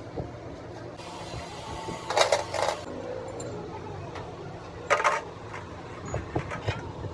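Metal clinking and knocking of tools or parts: a cluster of ringing clinks about two seconds in and another near five seconds, with lighter knocks near the end, over a low steady hum.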